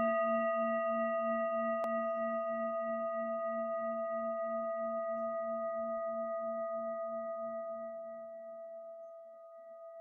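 Hand-held metal singing bowl ringing out after a single strike, several steady tones sounding together with a slow pulsing wobble in the lowest. The ring fades gradually and is nearly gone near the end.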